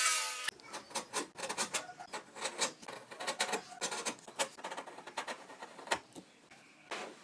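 Hand tools working wood: a louder rasping stroke ends about half a second in, followed by a run of short, irregular scraping and tapping strokes, several a second.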